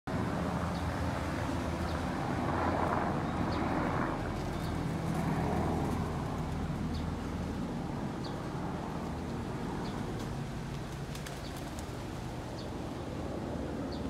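Steady low outdoor rumble with short, high bird chirps about once a second; a rush of hiss swells twice in the first six seconds.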